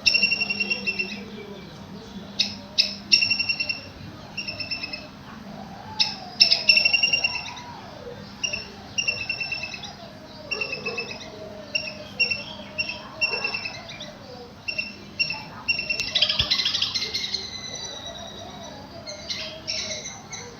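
Palm squirrel calling: sharp, high chirps repeated in quick series of several at a time, with short pauses between the series and a denser, louder run of calls near the end.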